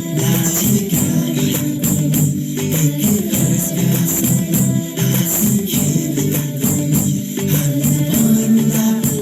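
Recorded music playing, an instrumental stretch of a song with a steady beat and a rattling, tambourine-like percussion over sustained low notes.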